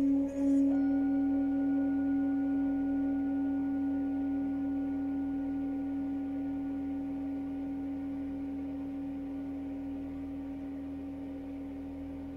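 Singing bowl rubbed around the rim with a mallet, then left to ring: a steady low hum with fainter higher overtones. The pulsing and rubbing stop under a second in, and the bowl rings on, slowly fading.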